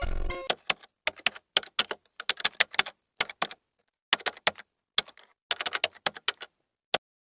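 A rapid, irregular series of sharp clicks and taps in short clusters, with a pause of about a second in the middle.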